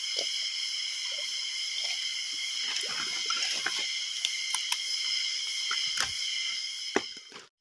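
Steady chorus of insects droning in several high bands, with footsteps and rustling through dry leaves and undergrowth. There is a sharper knock about seven seconds in, and the sound cuts out briefly near the end.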